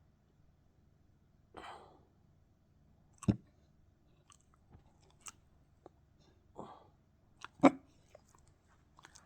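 A person hiccuping twice, about four seconds apart, each hiccup a sharp, sudden gulp, the second the louder, with a softer noisy sound shortly before each one and a few faint clicks.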